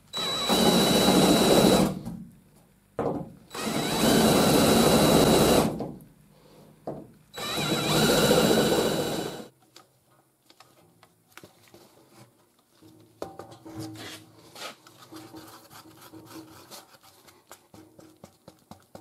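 Cordless drill boring three holes through the sheet-metal patch panel and bed side for rivets, each run about two seconds long with a steady high motor whine. After that only faint small clicks and handling sounds.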